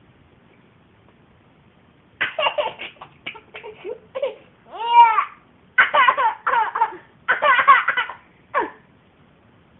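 Baby laughing in repeated bursts of giggles, starting about two seconds in, with one loud high squeal that rises and falls in the middle; the laughter stops a second before the end.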